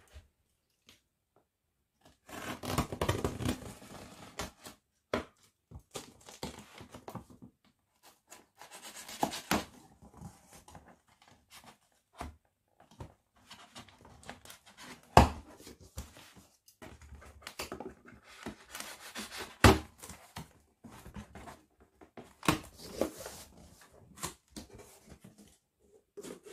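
Scissors cutting clear packing tape on a cardboard box and the tape tearing away, with rustling, crinkling and scattered sharp clicks as the box is handled and its flaps pulled open; two sharp clicks about halfway through and a few seconds later are the loudest.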